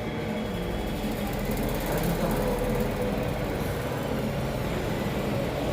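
Arge electric fan running with a steady whir.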